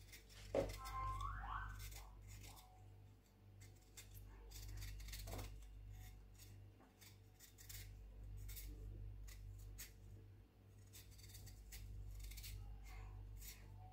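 Kitchen knife shaving the rough, hairy skin off cocoyam tubers: a string of short, faint scraping strokes at an uneven pace, over a low steady hum. A sharp knock comes about half a second in.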